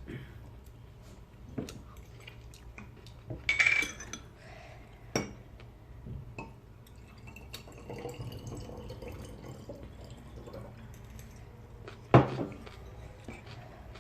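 Dishes and cutlery clinking and knocking at a meal table. There is a brief ringing clink about four seconds in and a sharper, louder knock near the end.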